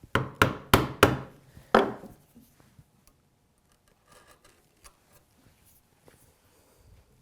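Chisel being struck into the end of a hinge-leaf mortise in wood: five sharp blows in under two seconds, then faint scraping as the waste is pared out.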